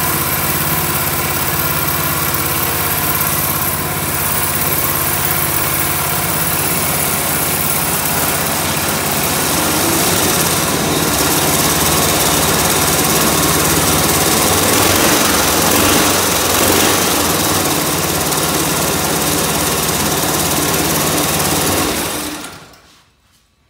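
Go-kart's built 'Chonda' racing engine, a single-cylinder four-stroke Honda-clone, running steadily through its stock muffler, then shut off about 22 seconds in.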